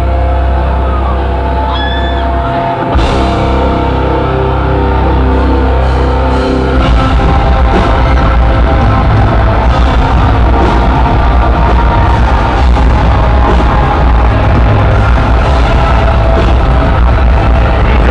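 Live heavy rock band playing loud: a held low bass note for the first several seconds, then the drums and full band come in about seven seconds in with a steady driving beat.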